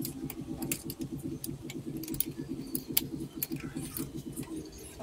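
Irregular metallic clicks and clinks of a ratchet wrench and socket being worked on a bolt in an engine bay, with one sharper clink about three seconds in, over a steady low background noise.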